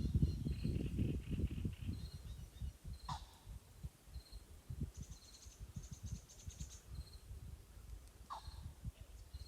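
Faint outdoor ambience: small birds chirping with short high notes, and twice a call that sweeps quickly downward, over a low uneven rumble that fades after the first couple of seconds.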